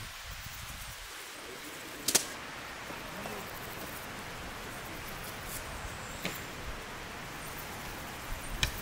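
Camping gear being handled and set down while unpacked from a dry bag: three sharp clicks or knocks, the loudest about two seconds in, over a steady outdoor hiss.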